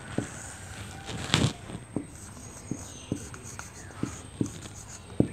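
Marker pen writing on a whiteboard: a run of light, irregular taps as the tip meets the board with each stroke.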